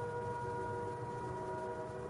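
Train horn holding a chord of several steady notes, which ends near the close, over a low rumble.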